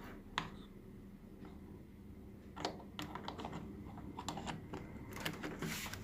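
Small, irregular clicks and light taps from handling a TV set and its parts: one sharp click shortly after the start, then a quick scatter of clicks from about two and a half seconds on.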